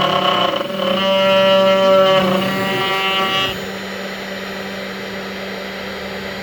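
CNC router running, its motors whining in a set of steady tones that shift to new pitches as the machine moves. About three and a half seconds in, the higher tones stop and a quieter steady hum remains.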